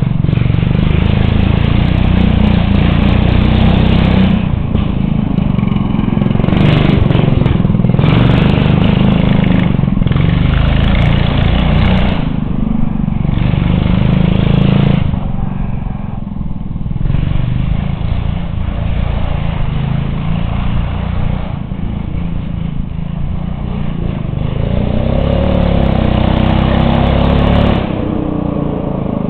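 Racing lawn tractor's engine running hard, revving up and easing off over and over as it spins donuts, with a strong low rumble. Near the end the engine's pitch can be heard sweeping up and down.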